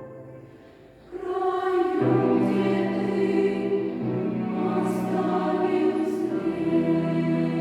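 Children's choir singing long held notes. A phrase dies away almost to nothing, then the choir comes back in about a second in on a sustained chord.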